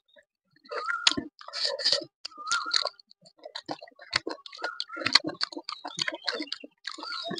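Close-up wet chewing and smacking mouth clicks of a person eating rice and vegetables. They come in short spells with brief pauses between.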